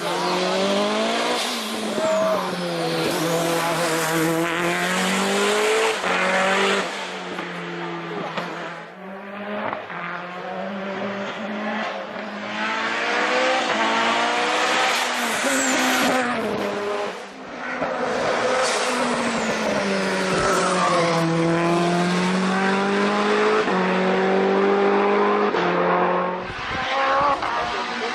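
Lancia Delta Integrale rally car's turbocharged four-cylinder with sports exhaust, driven hard: the engine note climbs repeatedly through the revs and drops at each gear change or lift, with brief lulls, and tyres squeal.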